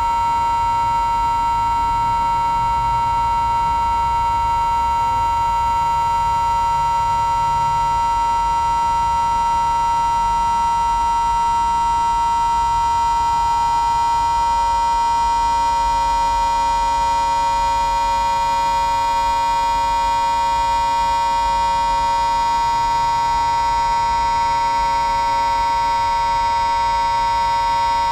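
Sustained drone on the note A, from several devices tuned together. It holds one steady pitch and level throughout, with many overtones above it.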